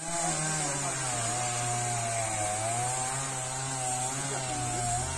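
A small engine running steadily, its pitch wavering slightly up and down.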